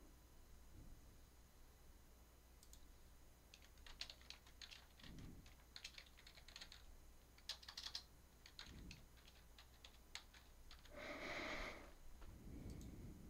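Faint computer keyboard typing: a few quick runs of light keystroke clicks, heard very quietly through the recording. A short soft rushing noise comes near the end.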